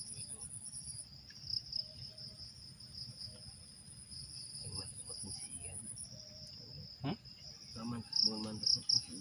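Insects chirring steadily: a continuous high trill with a still higher pulsing buzz that breaks off and starts again. A sharp click about seven seconds in, and low voices near the end.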